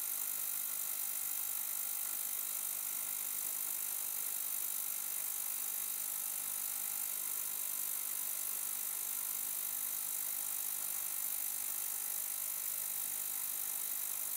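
GT Sonic 750 ml ultrasonic cleaner running with its lid closed, making a steady high buzz with hiss. It is partway through its 8-minute cleaning cycle, cleaning a cafetiere plunger assembly in water.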